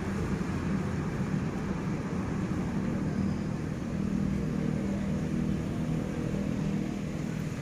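Diesel locomotive of an approaching train, its engine a steady low drone.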